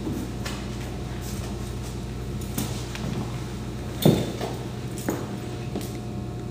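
Steady low hum of room tone with a few faint clicks, and one dull thump about four seconds in.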